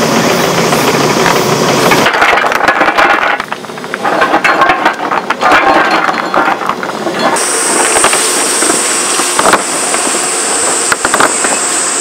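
Construction machinery engine running, with metallic rattling and knocks. The sound changes abruptly about two seconds in, and again after about seven seconds, when a steady high whine joins.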